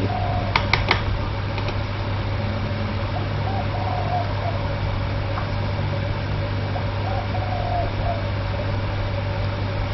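Steady mechanical hum of a running machine, with a few light clicks just under a second in.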